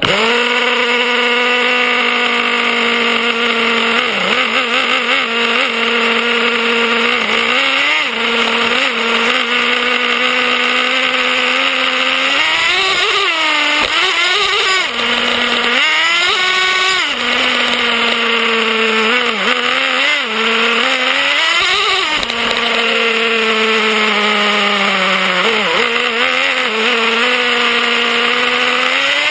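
Traxxas Revo's 3.3 cc two-stroke nitro engine running, heard close from a camera on the chassis: a steady high-pitched drone whose pitch swings up and back down several times as the throttle is blipped, most of all around the middle and again near the end.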